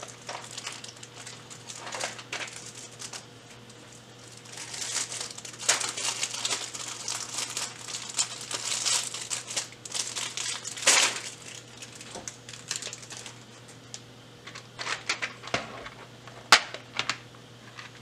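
Rummaging through a plastic compartment box of IC sockets: irregular plastic rustling and crinkling with clatter, busiest through the middle, and a sharp click near the end.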